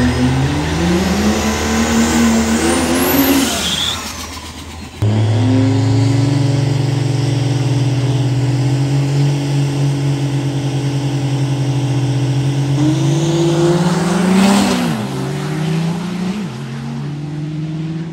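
Cummins diesel engine of a second-generation Dodge Ram pickup revving through a smoky burnout, pitch rising and falling over tire noise. After a cut it holds a steady rev, then climbs and launches hard about 14 seconds in, the pitch falling away after.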